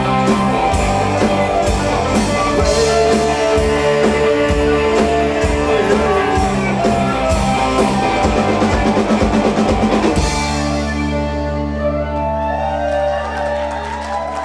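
Rock band playing, with guitars, bass and drum kit; about ten seconds in, the drums stop on a final chord that keeps ringing and slowly fades.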